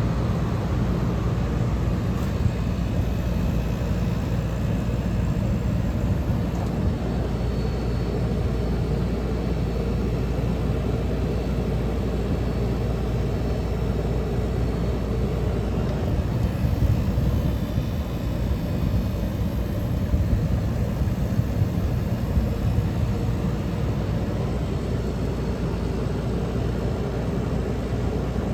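1977 General Electric Superthrust 10,500 BTU window air conditioner running: a steady rush of fan air over a low, even hum from its rotary compressor.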